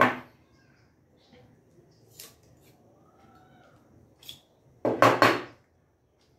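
Metal parts of a combination set (steel blade and protractor head) being picked up and handled, with a few light clicks and clinks and one louder clatter about five seconds in.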